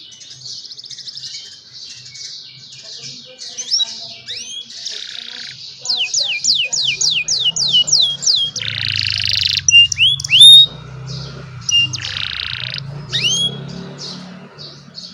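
Young canaries singing. Fast trills give way to a run of about ten quick downward-sweeping notes, then harsh buzzing phrases and rising whistles.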